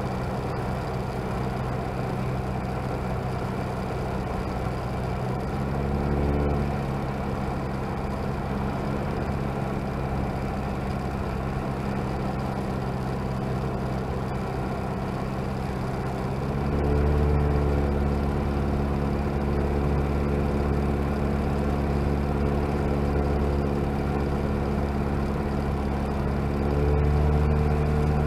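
Comco Ikarus C22 ultralight's engine and propeller heard from inside the cockpit, running steadily at reduced power on the approach to a grass strip. The engine note grows louder briefly about six seconds in, again from about seventeen seconds on, and once more near the end.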